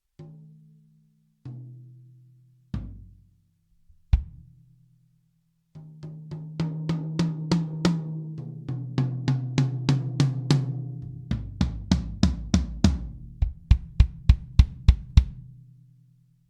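Sonor ProLite drum kit with clear-headed toms: four single strikes stepping down in pitch, each left to ring, the last and deepest a bass drum hit about four seconds in. From about six seconds the kit is played in a steady groove with fills, ending in a run of heavy low tom and bass drum hits that ring out.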